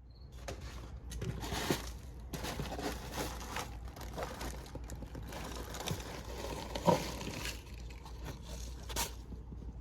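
Small scrap pieces being handled: an irregular rustling and crinkling with scattered clicks and a few sharper clacks, about two seconds in, near the middle and near the end.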